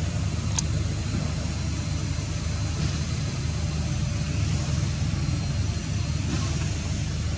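A steady low rumble of an idling engine that does not rise or fall, with one faint click just after the start.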